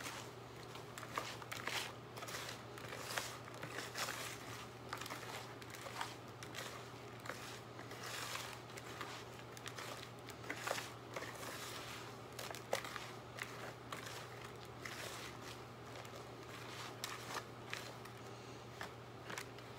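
Hands mixing soaked coconut coir and shredded paper in a plastic tub into worm bedding: a continuous run of irregular crinkling and rustling.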